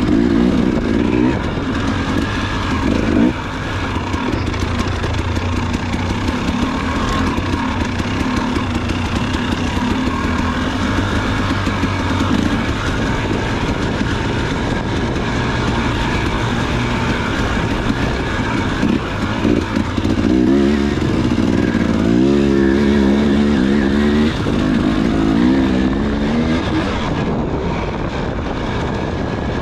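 Husqvarna dirt bike engine being ridden hard on an off-road race course, its note rising and falling with the throttle, with a run of quick revs up and down about twenty seconds in.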